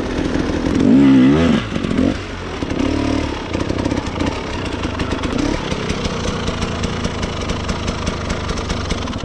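KTM EXC 250 enduro dirt bike engine revving up about a second in, then running steadily under way, with a scattering of small clicks and clatter over it.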